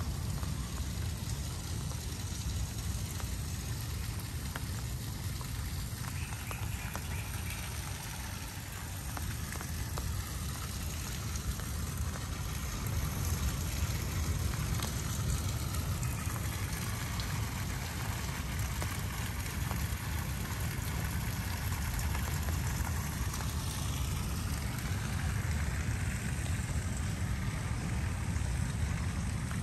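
Steady rain falling, an even hiss of drops over a low rumble.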